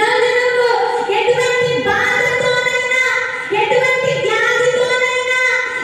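A woman singing a Telugu Christian worship song into a handheld microphone, holding long drawn-out notes in phrases with short breaths between them.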